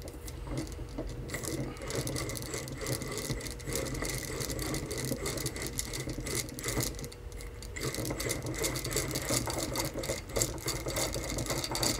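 Steel nut being spun off by hand along the threaded end of a Ford tractor's rear pinion shaft: a continuous rapid metallic rattle of the nut on the threads.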